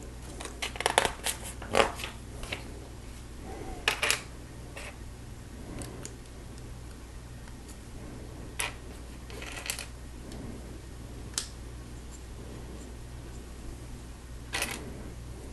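Small plastic Lego pieces being handled and pressed together: scattered sharp clicks and short rattles, several seconds apart.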